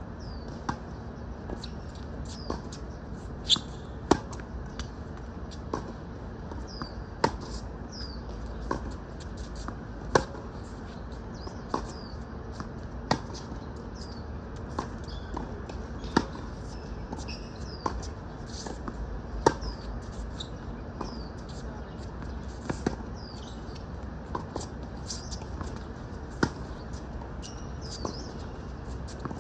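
Tennis balls struck back and forth in a steady baseline rally on a hard court. Sharp racket hits about every three seconds, the near player's the loudest, with fainter hits and ball bounces from the far end in between.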